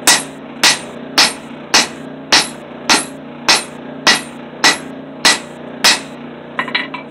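Hand hammer striking red-hot steel on an anvil while forging a knife blank's handle closed: eleven evenly spaced, ringing blows a little under two a second, then a few lighter, quicker taps near the end.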